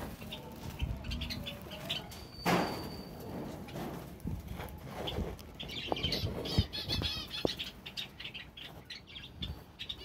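A flock of Java sparrows chirping, with wings fluttering, over scattered clicks and low thumps. The short chirps come thickest about six to seven and a half seconds in.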